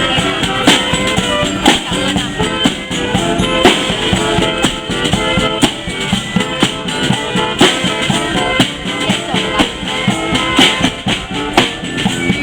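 Live street band music: a drum kit and bass drum keep a steady beat under held, pitched instrument notes that change in steps.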